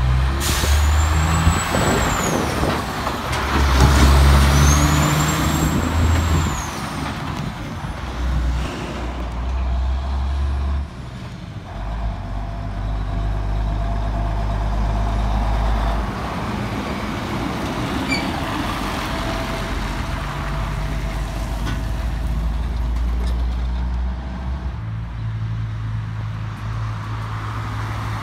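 Heavy diesel semi-trailer trucks working around a roundabout and pulling away, engines running under load and changing pitch in steps as they go through the gears. Two brief high whistles come in the first few seconds, and the engines are loudest about four seconds in.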